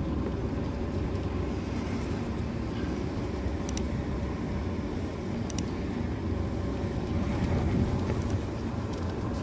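Car driving slowly, a steady low engine and road rumble heard from inside the cabin, with two faint short clicks near the middle.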